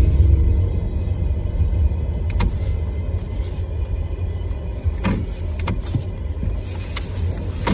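Mercedes EQS electric car on the move: a deep, steady low rumble, with a few short clicks and knocks scattered through it.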